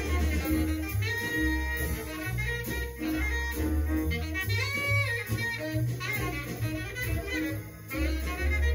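Mono jazz record playing through hi-fi loudspeakers: a saxophone solo line over walking double bass.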